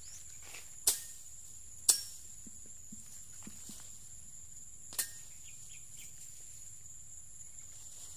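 Steady high-pitched insect drone, with three sharp clicks standing out above it about one, two and five seconds in.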